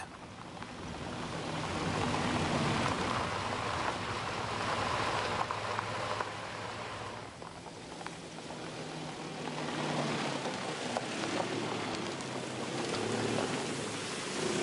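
An SUV driving on a rough dirt and gravel track: the engine runs under the noise of tyres rolling over stones, swelling louder and easing off as the vehicle passes close.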